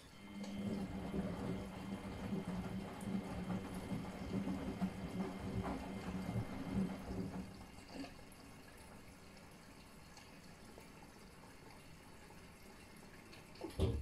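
Miele front-loading washing machine tumbling a wet load: a steady motor hum with water and laundry sloshing in the drum for about seven seconds, then the drum rests and the sound drops away, with a single knock near the end.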